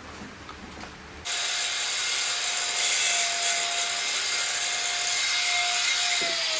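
Power tool running in a workshop for about five seconds: it starts suddenly with a loud hiss and a steady high whine, the whine sagging slightly just before it cuts off.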